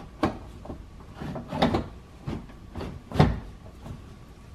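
Knocks and clunks of parts being handled inside a car door as the window glass is raised and worked into the window regulator's clamp. Several separate knocks, the loudest about three seconds in.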